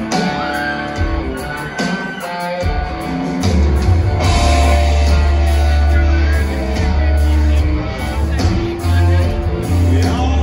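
Live rock band playing electric and acoustic guitars, drums and bass, with singing. The bass and drums come in fuller about three seconds in and the band grows louder. Heard from the audience in a theatre.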